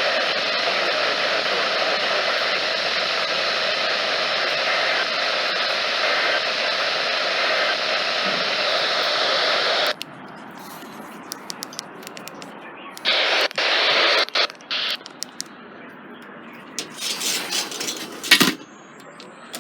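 Steady loud static hiss from a NOAA weather radio receiver, which cuts off suddenly about halfway through. After that come scattered clicks and a few short bursts of hiss.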